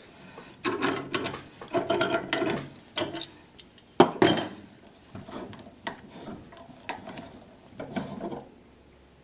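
Metal clinks, knocks and scraping as a pipe wrench loosens the threaded fitting of a sublimation valve from a stainless pipe vessel, then the fitting is turned off by hand; one sharp knock about four seconds in.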